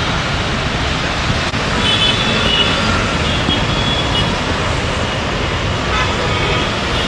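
Traffic noise from a jammed city road, with car horns sounding briefly a few times.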